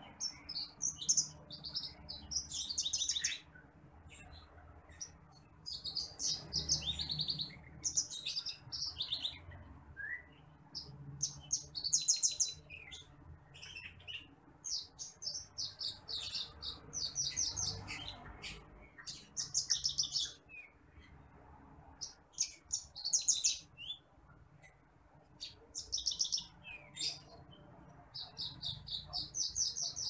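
Branjangan apung (titimplik), a lark, singing: repeated high, fast trilling and chirping phrases of one to two seconds each, broken by short pauses.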